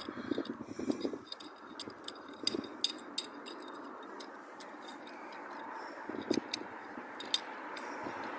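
Light, scattered clicks and taps of a metal clamp and transmission-mount parts being handled and fitted, over a steady background hiss.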